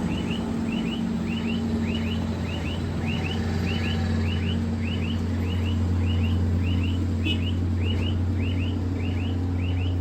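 A bird chirps over and over in quick pairs of short falling notes, just under two pairs a second, over a steady low street rumble.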